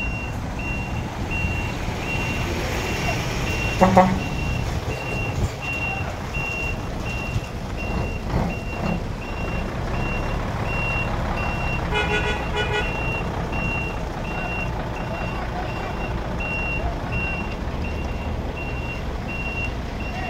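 Heavy diesel engine running with a steady low rumble while a container is craned, under a regular high-pitched warning beeper going a little more than once a second. A short loud pitched tone sounds about four seconds in, and a brief pitched tone about twelve seconds in.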